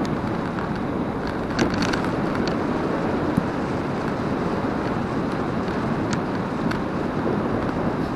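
Steady rushing noise of wind on the microphone and tyres rolling on asphalt while moving along a road, with a few light clicks.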